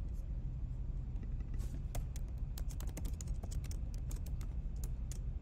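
Computer keyboard typing: a run of quick, irregular key clicks starting about a second and a half in, as a short line of text is typed.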